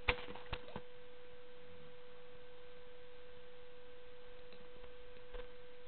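A steady electronic whine, one unchanging mid-pitched tone over faint hiss, with a few soft clicks in the first second.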